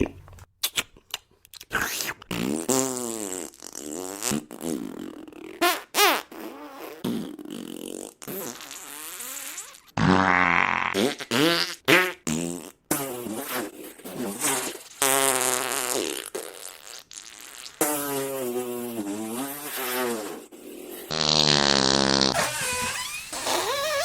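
A series of fart sound effects, one after another: short and long blasts of varying pitch, some wobbling and sputtering, with brief pauses between them.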